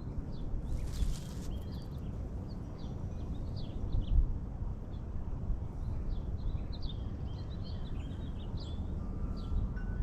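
Small birds chirping in short, scattered notes throughout, over a steady low background rumble, with a brief rustle about a second in.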